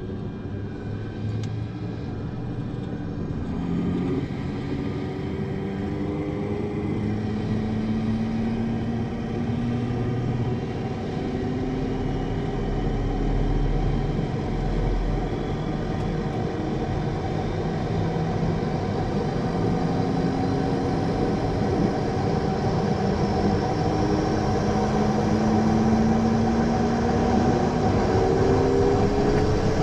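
A Garrett TPE331 turboprop engine on a Swearingen Merlin IIIB starting up, heard from inside the cockpit. Its whine and rumble climb steadily in pitch and loudness as the engine spools up.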